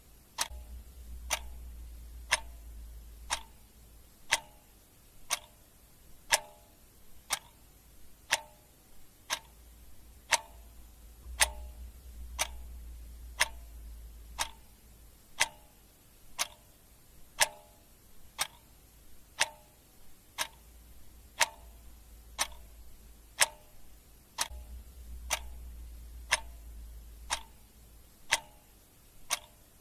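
Clock ticking steadily, about one sharp tick a second, each with a short metallic ring.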